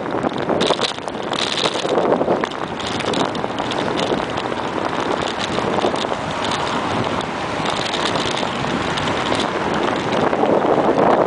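Steady rush of wind and road noise on a moving bicycle, with frequent small rattles and knocks throughout.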